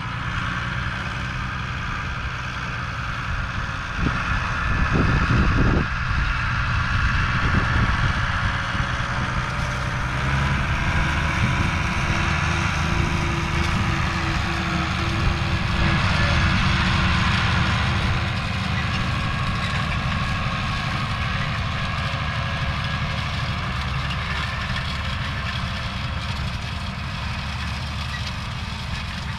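An engine idling steadily close by, with a louder low rumble for a couple of seconds about four seconds in.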